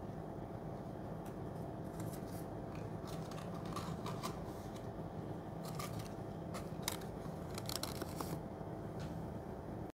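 Faint scattered clicks and rustles from an ice cream stick and its cardboard carton being handled, over a steady low hum.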